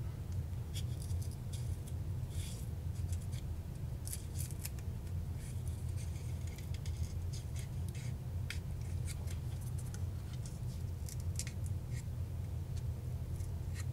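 A blade slitting and scraping the cardboard wrapper on a drill battery pack's lithium-ion cells: a run of short, irregular scratchy cuts over a steady low hum.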